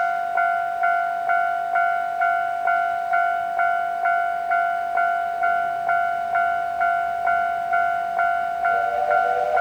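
Japanese railway level crossing alarm ringing its repeated electronic bell, about two strikes a second, steady and loud. Near the end, a steam locomotive's whistle, the 8620-class engine of the SL Hitoyoshi, starts sounding over it.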